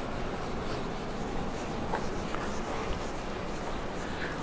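Whiteboard eraser wiping marker off a whiteboard in steady strokes, a soft continuous rubbing.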